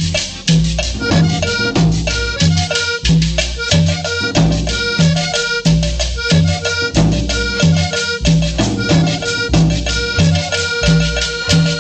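Instrumental stretch of a cumbia recording: accordion melody over a steady bass and percussion beat, the bass landing about twice a second.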